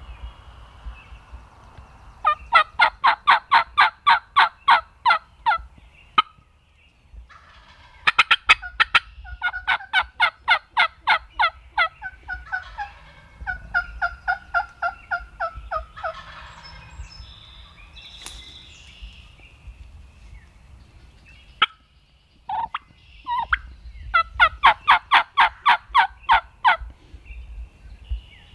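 Turkey yelping: several long runs of rapid, evenly spaced yelps, about five a second, some runs overlapping, with a few sharp clicks between them.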